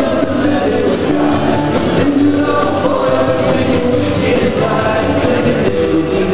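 Live stage-show music with a group of voices singing together over a band, sustained held notes and no break.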